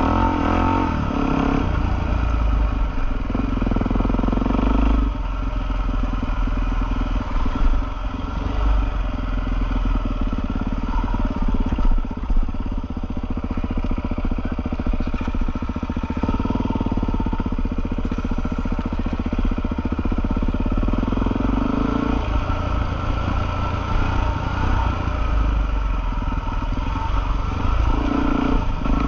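Single-cylinder four-stroke Suzuki trail bike engine under way on a dirt track, the throttle opening and easing off by turns so the engine note rises and falls.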